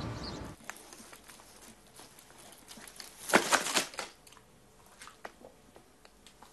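A dog rummaging in a wicker basket among torn paper: scattered rustles and crackles of paper, with a louder burst of crinkling and tearing about three and a half seconds in. It follows a brief stretch of steady outdoor background noise that cuts off half a second in.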